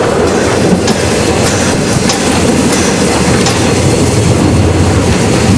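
Harz narrow-gauge railway train running downhill: a steady rumble of wheels on the rails, with light irregular clicks over the track.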